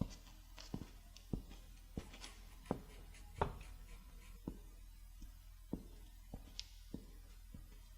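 Foley footsteps: short, even thuds at a walking pace, about three every two seconds, with one louder step a little before the middle.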